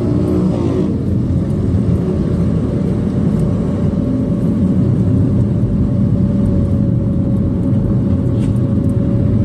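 Steady rumble of a car's engine and tyres heard from inside the moving car's cabin, with a faint steady whine running through it from about a second in.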